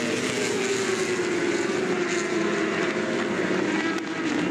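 Several racing superbikes' engines at high revs as the bikes race past, their overlapping notes slowly falling in pitch. A short dip in the sound comes about four seconds in.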